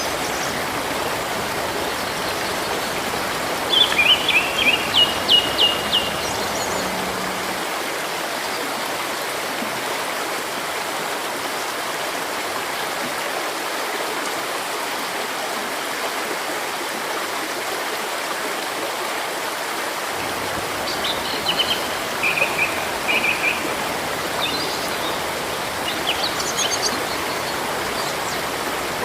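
River water running steadily, with small birds chirping in short quick runs of notes about four seconds in and again through the last third.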